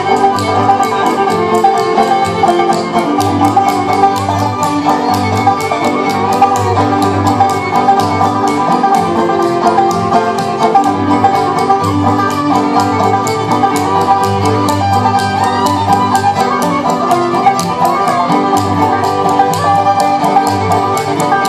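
Live bluegrass band playing through a small PA: rapid, even banjo picking over guitar, fiddle and a steady upright-bass pulse.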